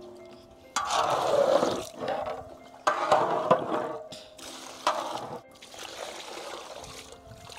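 Thick coconut milk poured into a large cooking pot, splashing in three separate pours.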